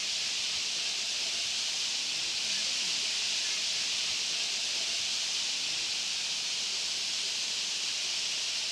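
Massed chatter of a huge flock of rosy starlings, blending into a dense, steady high-pitched din.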